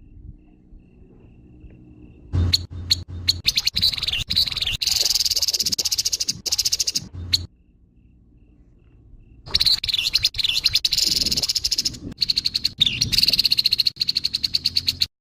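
Grey-headed babbler giving harsh, rapid rattling calls. They come in two long bouts, starting about two seconds in, with a pause of about two seconds midway.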